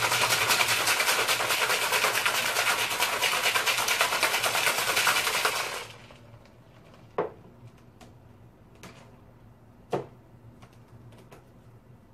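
Ice rattling rapidly inside a cocktail shaker as it is shaken hard, stopping abruptly about six seconds in. A few light knocks follow.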